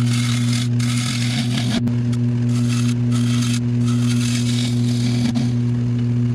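A bowl gouge cutting a juniper bowl blank spinning on a wood lathe: about six short hissing, scraping passes over a steady electric hum.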